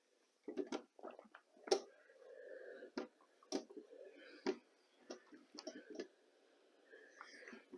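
Fabric quilt pieces and tools being handled on a worktable: a scatter of light clicks and knocks with soft rustling of cotton fabric between them.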